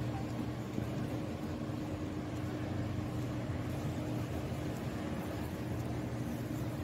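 Steady city street traffic noise with a constant low hum.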